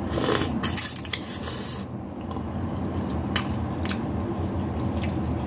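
A person slurping instant noodles off chopsticks. There are hissing slurps through the first two seconds, then a few short wet smacks of chewing and sucking in noodle strands, over a steady low hum.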